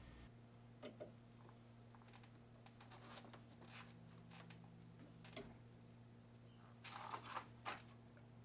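Near silence: a steady low hum with a few faint clicks and knocks, a short cluster of them about seven seconds in, from the glass bottle and water basin being shifted into position under the drill press.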